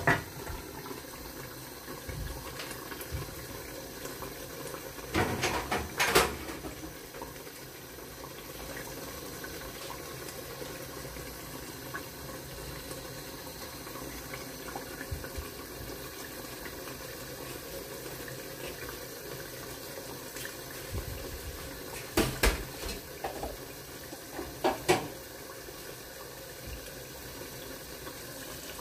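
Tomato stew boiling in a covered pan: a steady bubbling hiss. A few sharp clinks of cookware stand out, a pair about five seconds in and several more past the two-thirds mark.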